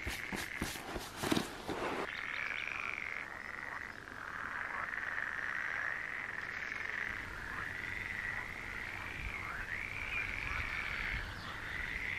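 Loud chorus of frogs calling without a break, many voices blending into one wavering trill. A few clicks and rustles of handling sit over it in the first two seconds.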